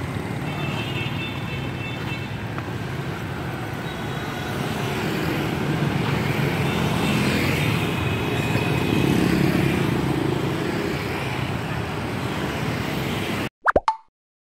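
Steady city street traffic of passing motorbikes and cars. Near the end it cuts off suddenly, and a short burst of sound is followed by silence.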